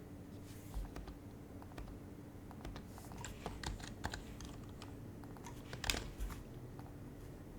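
Typing on an HHKB Professional HYBRID Type-S keyboard with its silenced Topre switches. The keystrokes are sparse at first, come in a quick run in the middle, and are loudest in a short cluster about six seconds in.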